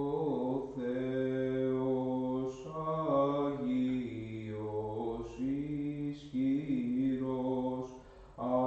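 Unaccompanied Orthodox liturgical chant, sung in slow phrases of long held notes, with a short break near the end before the next phrase begins.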